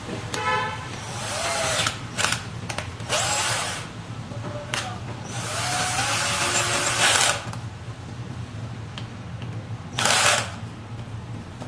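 Cordless power screwdriver running in several short bursts, its motor pitch rising and falling, while fitting the scooter's new display.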